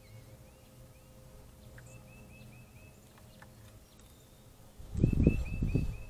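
Dark-eyed junco bathing in a shallow bird bath: a loud burst of splashing starts about five seconds in and lasts around a second as it flutters its wings in the water. A bird chirps faintly in the background in two quick runs of short, repeated notes.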